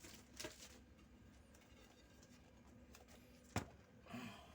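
Mostly near silence, with a soft brief rustle early on and a single sharp knock about three and a half seconds in, as a glass refrigerator shelf is set into the fridge's shelf rails.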